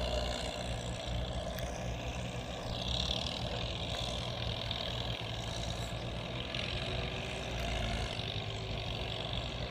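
Diesel engines of two Fiat tractors, a 600 and a 640, running steadily together under load as they till a flooded rice paddy.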